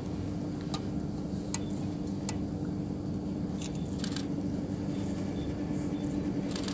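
Steady low hum of the ship's engines, with several sharp camera-shutter clicks at irregular intervals.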